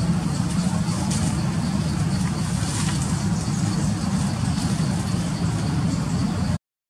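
Steady low background rumble with faint high ticking above it; the sound drops out completely for about half a second near the end.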